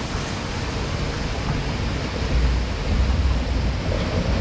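Steady rush of water in a log-flume channel around a moving boat, with wind rumbling on the microphone, heavier from about two seconds in.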